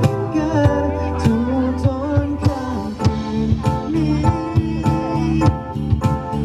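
Male singer performing a pop song, amplified over a band accompaniment with a steady bass and a drum beat of about two hits a second.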